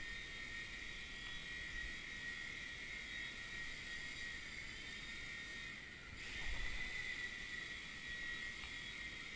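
WLToys V911 micro RC helicopter's electric motors whining with a steady high-pitched tone. About six seconds in the whine briefly drops away, then comes straight back.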